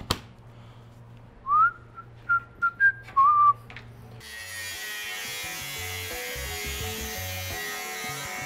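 A person whistles a few short notes. About four seconds in, an angle grinder with a thin cut-off disc starts cutting through metal angle, a steady high hiss with background music under it.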